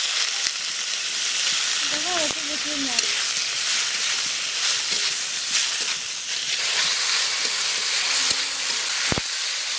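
Chopped potato leaves sizzling hard in hot oil in a kadai, stirred with a metal spatula that scrapes and clicks against the pan.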